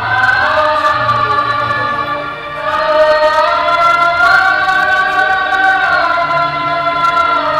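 Opening of a karaoke backing track for a Hindi film song: a chorus holds long wordless notes over the accompaniment. The notes step up twice in the middle and ease back down near the end.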